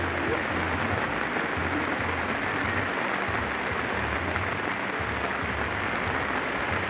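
Heavy rain falling onto a pond: a steady, even hiss, with irregular low rumbling underneath.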